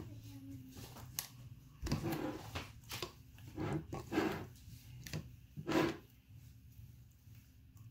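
Kitchen tongs clicking against a ceramic bowl and squelching chicken cutlets around in a wet marinade: an irregular string of clicks and wet squishes that dies away about six seconds in.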